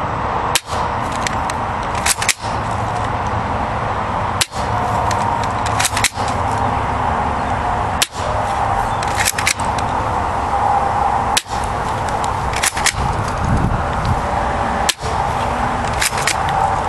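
Spring-powered airsoft rifle firing BBs at a target, one sharp snap every one to two seconds, some shots in close pairs, over a steady background rush.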